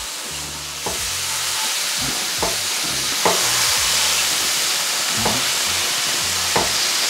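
Chicken pieces sizzling in a hot pan, the hiss growing louder. A spatula scrapes and taps against the pan about five times as the pieces are turned.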